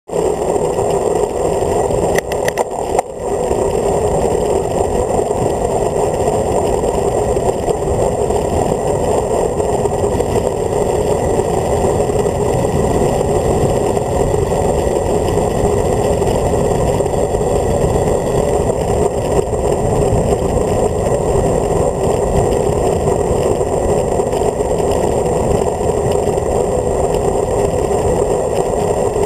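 Steady, loud wind rushing over the camera's microphone on a road bike descending at speed, with a low rumble underneath. A few short clicks about two to three seconds in.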